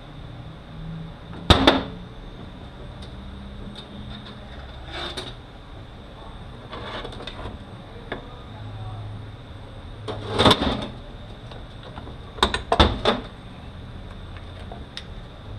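Metal transfer-case parts being handled and set down on a workbench: a few sharp clanks and knocks, the loudest about a second and a half in, another near the middle, and a quick cluster about two-thirds through, over a steady low hum.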